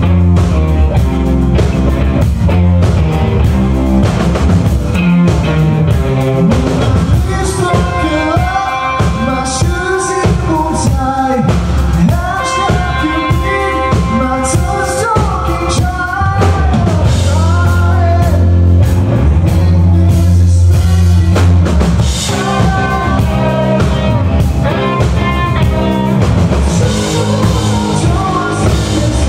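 Live rock band playing: electric guitars and a drum kit, with a lead singer's vocal over the top.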